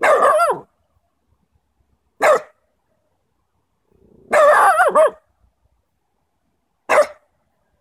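Small Maltese terrier puppy barking four times: the first and third barks drawn out with a wavering pitch, the second and fourth short and sharp.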